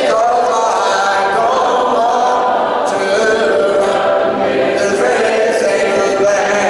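Congregation singing a hymn together a cappella, many voices with no instruments, held notes changing about once a second.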